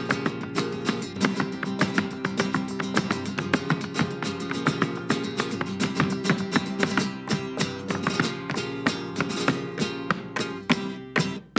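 Flamenco guitar playing, with sharp strummed strokes several times a second over ringing chords.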